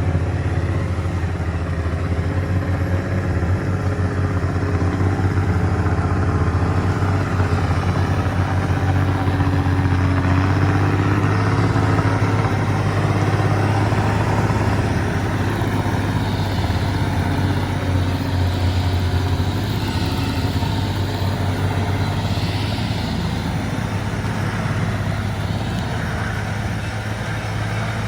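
Engine of heavy earthmoving machinery running steadily with a deep, even hum.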